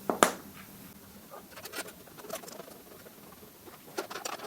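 A sharp metal knock, then scattered light clinks and rattles as moped front-end parts are handled and set back in place.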